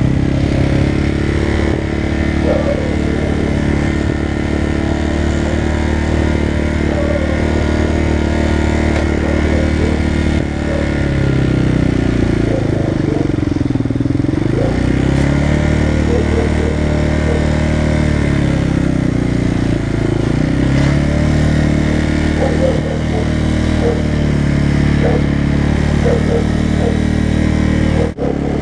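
Motorcycle engine running steadily under way, its pitch dipping and climbing back twice, about halfway through and again a little later, as the engine speed falls and rises. The sound breaks off briefly near the end.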